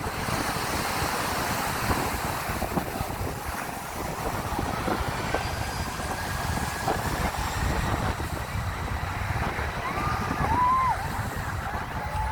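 Jet airliner engines running at takeoff power: a steady roar with a faint tone that rises slowly in pitch midway through.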